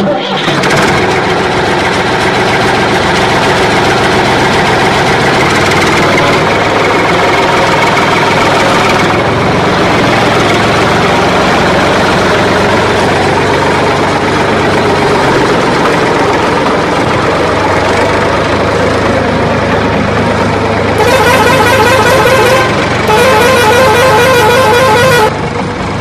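Vehicle sounds laid over the picture: a steady engine with horns honking, and two loud horn blasts of about two seconds each near the end.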